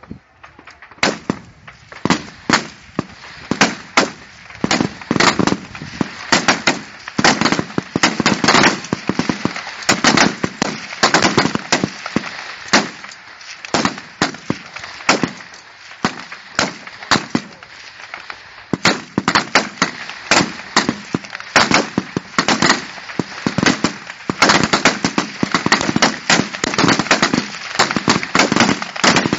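Rifle fire from many shooters along a firing line: a rapid, irregular string of sharp shots, several a second and overlapping, starting about a second in.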